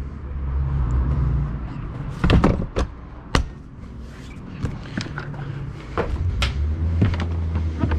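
Sea-Doo jet ski's seat and hatch covers being fitted and latched shut: a series of sharp knocks and clatters, the loudest two to three and a half seconds in, over a low steady rumble.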